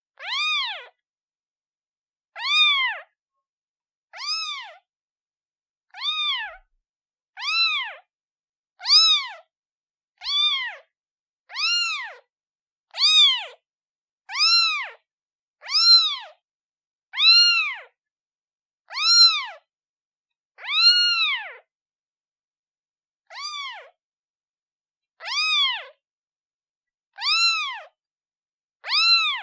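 Newborn kitten meowing over and over, calling for its mother: about one high, thin meow every second and a half. Each meow rises and then falls in pitch, with a slightly longer pause about three-quarters of the way through.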